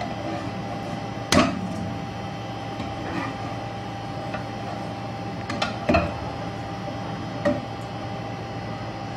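Metal slotted skimmer and plastic spatula knocking against a nonstick wok while scooping out fried onions: a handful of sharp clacks, the loudest about a second in, over a steady background hum.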